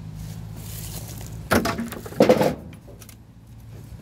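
Two short bursts of metallic clattering about a second and a half and two seconds in, as tools and parts are handled during the generator teardown, over a steady low hum.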